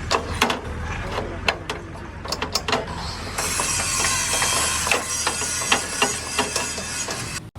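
Repair-shop work on metal: a string of sharp hammer-like knocks, irregularly spaced. About three seconds in, a steady high hiss joins them and runs on with further knocks until it cuts off just before the end.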